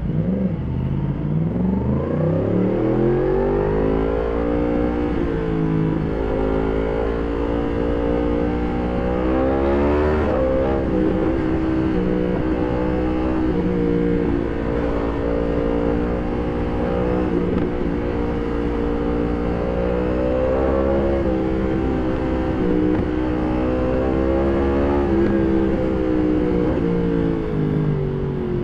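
2020 Yamaha MT-10 SP's crossplane inline-four through an Akrapovic exhaust. It accelerates hard from low revs over the first few seconds, then runs at speed with the revs rising and falling, with a sharper rise and drop about ten seconds in.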